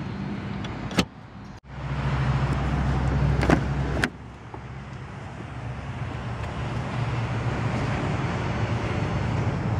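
A single click about a second in, then the car's rear door latch clicking twice as the door is pulled open, a little after three seconds in, over handling rumble and steady outdoor background noise.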